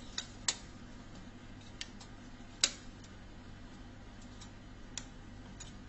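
Irregular light clicks and taps from handling a spiral-coil drink vending machine, the loudest about two and a half seconds in, over a steady low hum.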